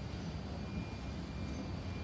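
A steady low rumble of vehicle noise, with a faint high thin whine over it.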